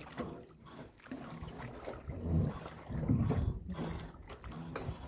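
Water lapping and trickling around a small boat, with gusts of wind buffeting the microphone in uneven low rumbles, strongest a little past the middle.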